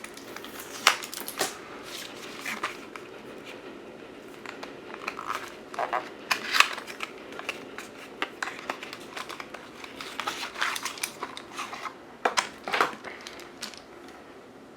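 Unpacking a tape-sealed cardboard toy-train box: irregular rustling, crinkling and small clicks of cardboard and packaging being handled.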